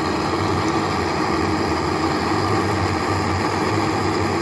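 Gas blowtorch flame burning steadily, a constant noise while it heats a tube for melting through plastic.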